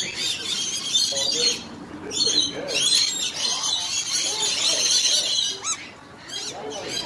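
Rainbow lorikeets chattering with quick, high-pitched squeaks and screeches, a busy flock sound that pauses briefly twice.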